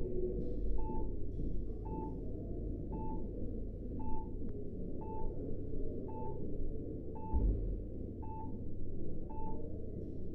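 Bedside patient monitor beeping steadily about once a second, each a short high beep, over a low muffled room rumble.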